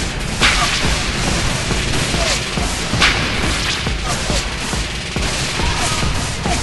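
Gunfire over a continuous low battle rumble: two loud sharp shots, one about half a second in and one about three seconds in, with fainter cracks scattered between.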